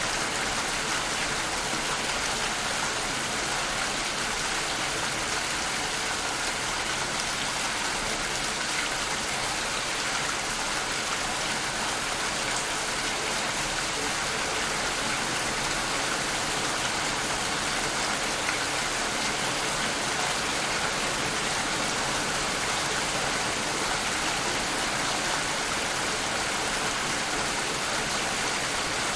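Steady rainfall, an even hiss of many drops falling on a surface.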